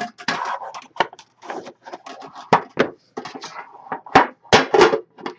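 A trading card box and its card tin being handled on a table: an irregular run of short knocks, clicks and scrapes, with a few sharper knocks in the second half.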